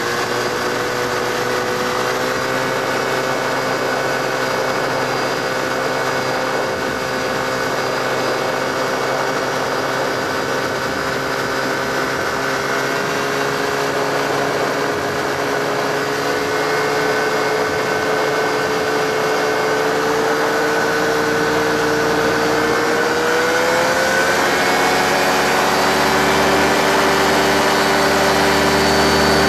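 The Rotax 532 two-stroke twin of an AC-4 gyrocopter running steadily while the craft taxis along the runway. Its engine speed rises about three-quarters of the way through and holds at the higher pitch.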